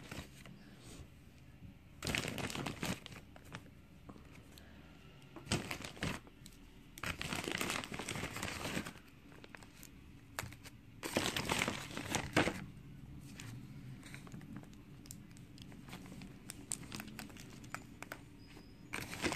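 Packaging crinkling by hand in several bursts of a second or two as jars of acrylic nail powder are unwrapped, with a few light clicks between.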